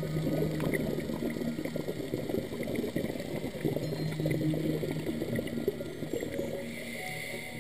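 Scuba diver's exhaled air bubbling from a regulator underwater: a dense, irregular gurgle that is strongest in the lower pitches.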